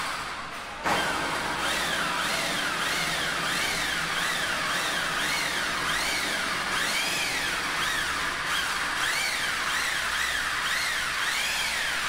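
Corded electric drill driving self-drilling screws to fasten a junction box to a silo's steel wall. It starts suddenly about a second in and runs on, its whine rising and falling over and over.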